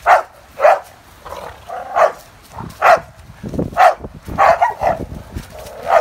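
A dog barking repeatedly: about seven short, sharp barks, roughly one a second, with rough scuffling between them.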